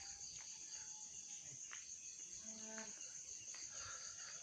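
Crickets and other night insects chirring steadily at a high pitch, with a faint short pitched call about two and a half seconds in.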